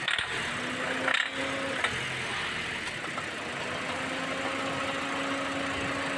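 Toyota Yaris petrol engine idling with the strange knocking the mechanic calls engine knocking, with a few sharp knocks about a second in. He traces it to bad combustion from diesel mixed into the petrol.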